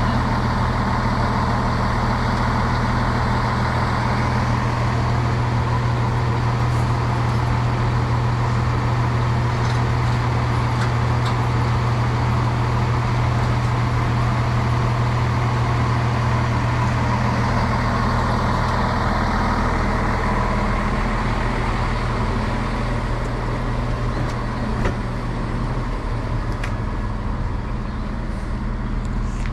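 Diesel passenger train's engine running steadily with a low hum, easing off about twenty seconds in.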